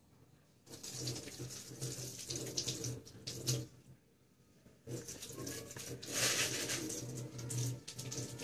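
Water running and splashing in a plastic basin, in two spells of about three seconds each, starting just under a second in and pausing briefly around four seconds in.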